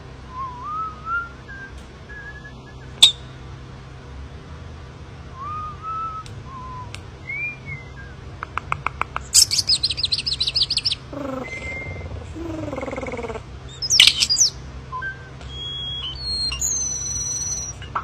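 Common starling singing: a varied run of slurred whistles, rapid clicking rattles, falling slides and sharp clicks, over a faint low hum.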